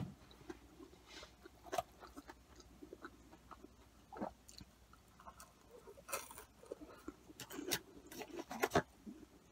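Close-up chewing of cheesy curly fries, faint, with scattered short clicks and wet mouth sounds, busiest in the second half.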